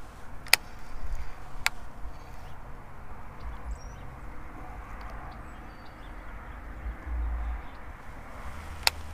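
Three sharp clicks from handling a baitcasting rod and reel, the first two close together near the start and the last near the end. Under them are a low rumble on the microphone and a few faint bird chirps.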